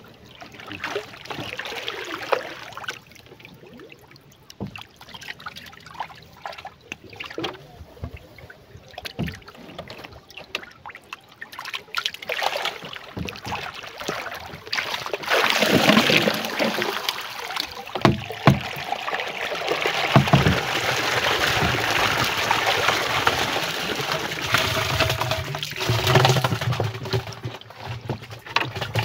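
Water splashing and sloshing as a rubber bucket trap is hauled up out of the river alongside a wooden canoe, with scattered knocks. About halfway through the water sound becomes louder and continuous.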